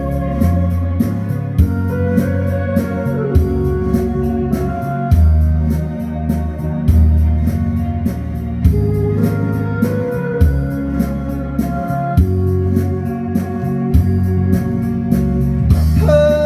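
Instrumental interlude of a karaoke-style backing track: an electronic organ plays the melody over a bass line and a steady drum-machine beat.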